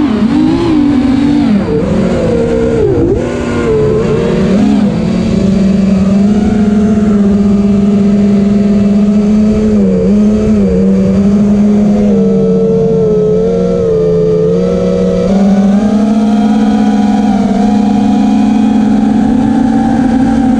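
FPV racing quadcopter's brushless motors and propellers whining loud and close, heard from on board. The pitch wavers up and down with the throttle for the first few seconds, holds steady through the middle, then steps up slightly about three-quarters of the way through.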